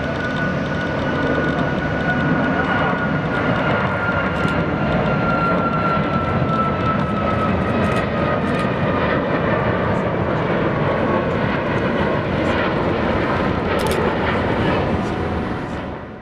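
Boeing 737 MAX 8 airliner's CFM LEAP-1B turbofans at takeoff thrust as it lifts off and climbs away: a loud, steady rush of jet noise with a high whine that slowly falls in pitch over the first half. The sound fades out sharply near the end.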